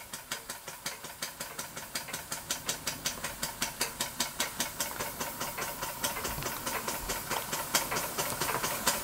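Märklin toy steam engine with a copper vertical boiler running on steam and driving a model bandsaw by belt: a quick, regular beat over a steady hiss. The beat gradually speeds up and grows louder.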